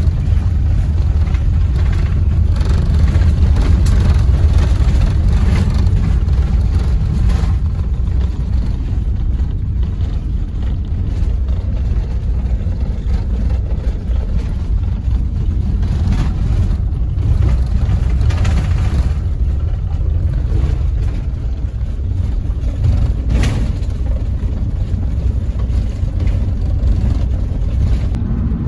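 Steady low rumble of a vehicle on the move, heard from inside the cabin: engine and tyre noise, with a few brief knocks from bumps.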